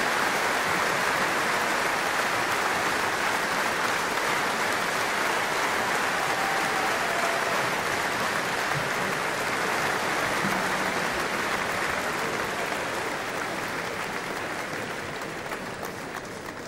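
Large crowd applauding steadily after a song, the applause dying away over the last few seconds.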